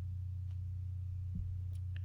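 Steady low electrical hum, with two faint light clicks: about half a second in and again near a second and a half.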